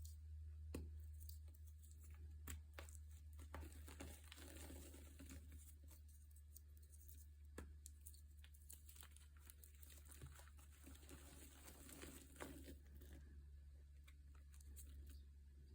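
Faint crinkling and scattered light clicks over a steady low hum.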